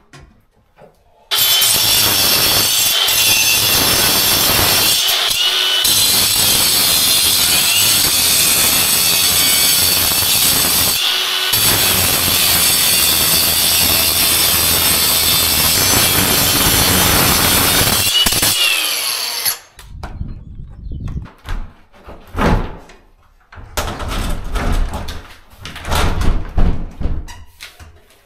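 Angle grinder running steadily as it cuts off old fittings; it starts about a second in and cuts off suddenly after some eighteen seconds. Then a string of knocks and bumps as a door is pushed and knocked into its frame.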